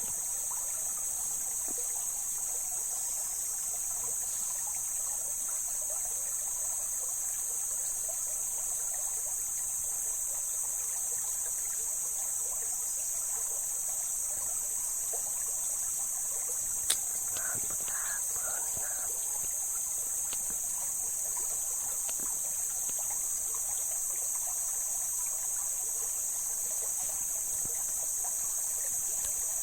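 Mountain river water flowing and trickling over rocks, under a steady high-pitched chorus of insects. A single sharp click just past the middle.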